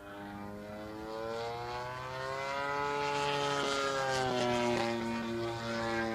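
Radio-control Extra aerobatic plane's DA-60 single-cylinder two-stroke gas engine and propeller running in flight. The pitch climbs over the first three seconds and then falls away as the plane passes by.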